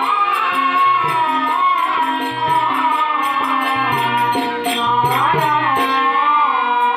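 A woman singing a Telugu stage-drama song with a bending, ornamented melody, accompanied by a harmonium's held notes and a drum and small percussion keeping a steady beat.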